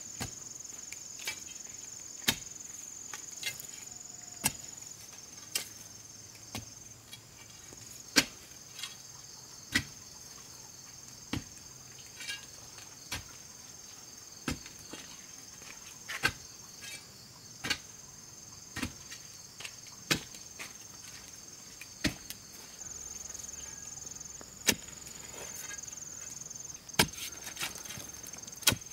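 Sharp knocks of a tool striking wood, about one every second or so and irregularly spaced, over a steady high chirring of insects.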